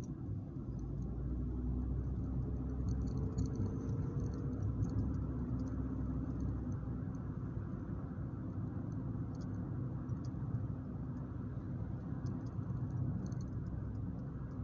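Car driving, heard from inside the cabin: a steady low rumble of engine and road noise, with faint scattered ticks and clicks throughout.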